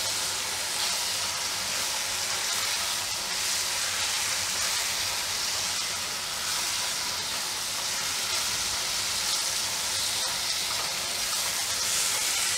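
Sliced ridge gourd frying in hot oil in a nonstick pan, a steady sizzling hiss, as a silicone spatula stirs the slices through the spices.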